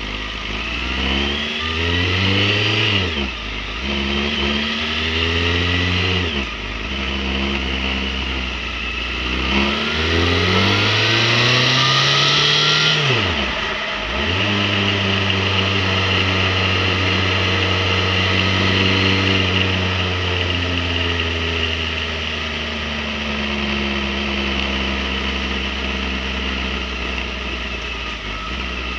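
Motorcycle engine under way, its revs climbing and dropping back sharply about three times in the first half, then running steadily and slowly easing off.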